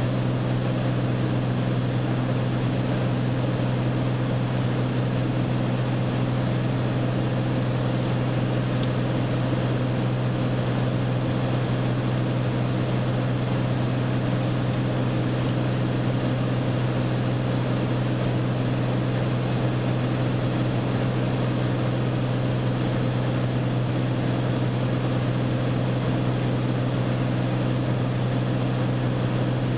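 A light single-engine propeller airplane's engine and propeller running at a steady cruise setting, heard from inside the cockpit. It is an even drone with a strong low hum and a hiss of rushing air, with no change in pitch or level.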